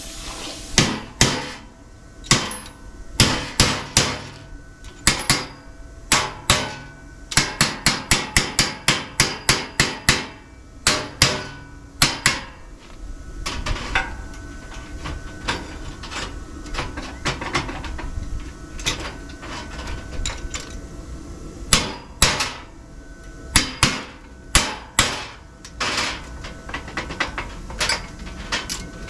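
Hammer blows struck in uneven groups, with a fast run of quick strikes partway through.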